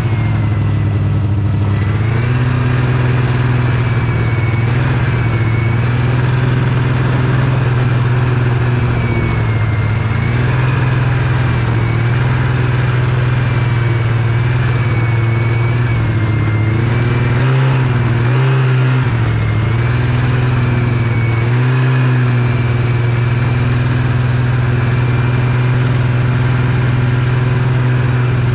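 Yamaha Venture snowmobile engine running steadily under way, its speed stepping up about two seconds in and briefly dipping and picking up again a few times later on.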